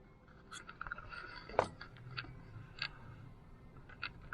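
Handling noise of a camera being fiddled with: a string of irregular small clicks and taps with light rubbing, the loudest click about a second and a half in.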